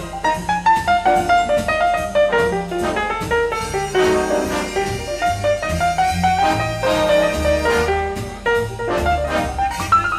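Jazz instrumental with a brass-led melody over piano, bass and a drum kit keeping a steady beat.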